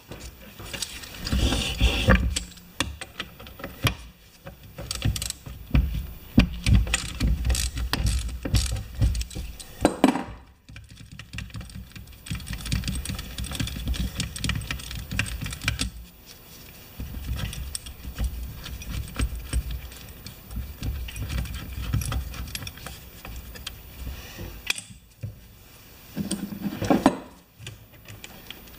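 Ratchet wrench clicking and loose metal parts clinking as bolts come off the brake assembly of a lawn tractor transaxle, with irregular knocks of the housing against the bench.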